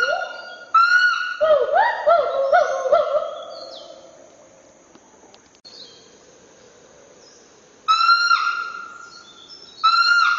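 Gibbon calling: a bout of loud whooping notes that swoop up and down, with some long held notes. The calls fade for a few seconds in the middle and start again near the end.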